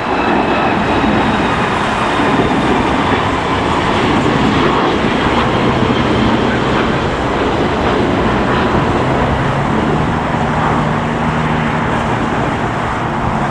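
Steady jet-engine noise from an airliner taxiing at low power: a rumble with a faint high whine, and a low hum joining in from about five seconds in.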